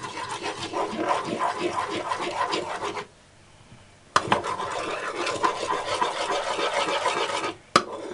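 A spoon scraping against a cooking pan in quick, rhythmic stirring strokes, in two spells of about three seconds with a short pause between. A sharp knock comes near the end.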